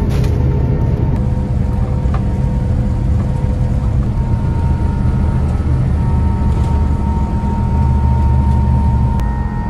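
Airbus A350-900's Rolls-Royce Trent XWB jet engines heard inside the cabin: a loud, steady low rumble with a high whine that has just risen in pitch and holds steady, as the engines run ahead of takeoff. A sharp click comes near the end.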